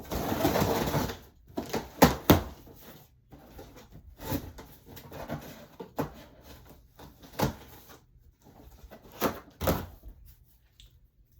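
A parcel being opened and unpacked by hand: about a second of loud packaging rustle at the start, then scattered sharp knocks and thumps as items are handled.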